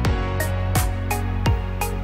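Background music with a steady beat over held chords.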